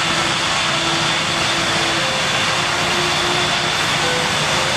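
Steady jet aircraft engine noise, an even rushing with a faint high whine over it; its level neither rises nor falls.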